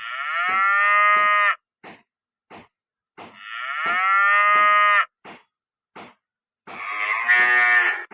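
Cow mooing: three long moos, each falling in pitch, with brief faint sounds between them.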